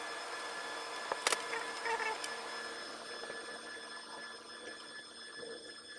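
A few sharp snips and clicks of a hand wire stripper cutting and stripping a thin two-core power lead, a pair about a second in and a smaller cluster near two seconds, over a steady electrical hum.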